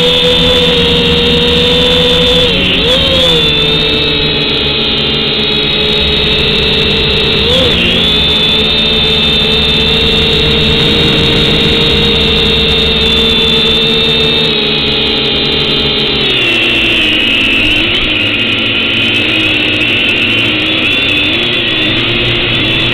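Quadcopter drone's electric motors and propellers whining steadily, the pitch wavering briefly a couple of times and dropping a little about two thirds of the way through.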